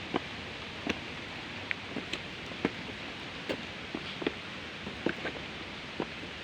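Footsteps on a stony trail, an irregular knock or scuff about every half second, over a steady rushing hiss.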